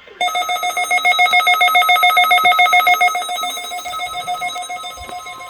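Weather radio receiver sounding its alert as a rapid pulsing electronic beep, several pulses a second, set off by the SAME coded header of the NOAA Required Weekly Test. It is loudest for the first few seconds, then quieter.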